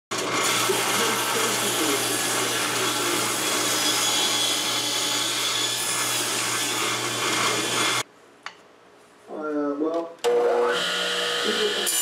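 Table saw running and ripping a thin strip of wood, a loud steady whir that cuts off abruptly about eight seconds in. After a short lull, a radial arm saw runs with a steady whine.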